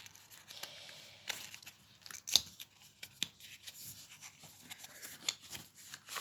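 A deck of cardstock oracle cards and its cardboard box being handled as the cards are taken out: soft rustling and scraping with scattered clicks, one sharp click about two seconds in.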